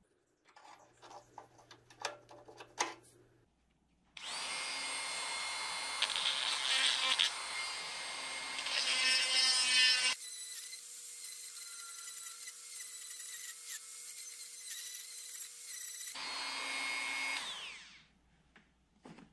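Handheld rotary tool running at high speed, its bit held against a small metal terminal, a steady high whine whose sound changes partway through. A few handling clicks come first, and the tool starts about four seconds in and stops near the end.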